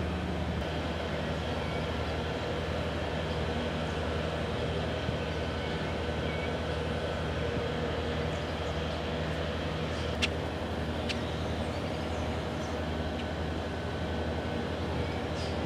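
Large container ship's engines and machinery: a steady low drone with several held tones. A sharp click about ten seconds in, and a fainter one just after.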